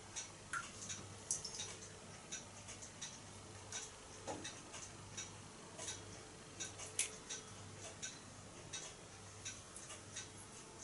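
Faint, irregular small ticks and drips, about two to three a second, as water drips from a toy pop-pop boat held upright over bath water; a few of the drips give a short rising plink.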